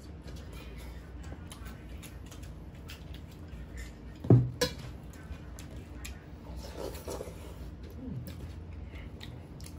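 Eating sounds: hands mixing and scooping rice on steel plates, with soft scrapes, small clicks and chewing. One short, loud, low thud about four seconds in.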